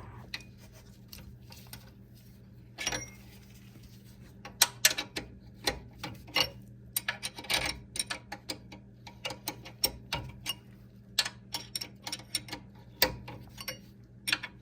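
Sharp, irregular metal clicks and clinks of hand wrenches working the 13 mm rear brake caliper bolts, sparse at first and coming thick and fast from about four seconds in, over a steady low hum.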